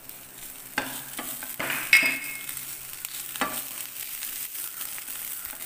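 Onion and spice masala sizzling in oil in a non-stick pan as a spatula stirs it, with a few knocks and scrapes of the spatula against the pan, the loudest about two seconds in.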